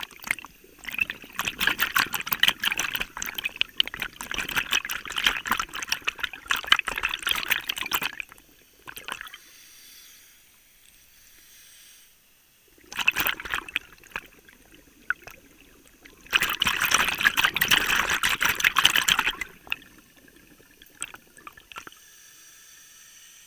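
A diver's exhaled air bubbling out of the regulator underwater: crackling bursts of bubbles lasting a few seconds each, one long burst, then two shorter ones, with quiet gaps between breaths.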